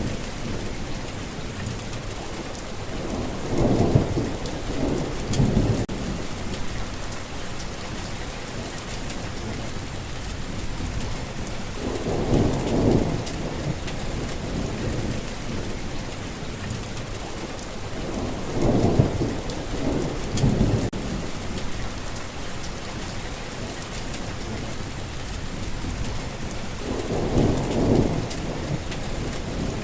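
Steady rain falling on a forest path, with low rolls of thunder swelling and fading four times.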